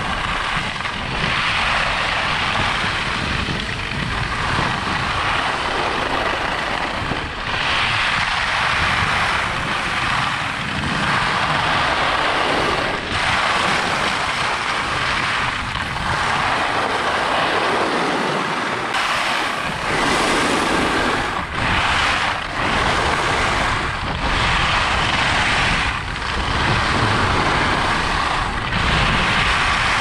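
Ski edges carving and scraping across firm groomed snow: a crisp hiss that swells and fades with each turn. Underneath is a steady low rumble of wind on the microphone.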